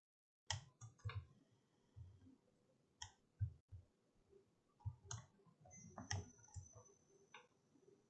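Faint, scattered computer mouse clicks, about nine spread unevenly, as a picture is dragged and resized on screen.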